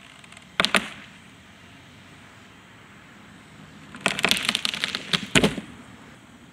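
White pine trunk section cracking and splintering at its cut as it topples. There are a couple of sharp cracks about half a second in, then a quick run of splitting cracks about four seconds in, ending in a heavy thud as the log hits the ground.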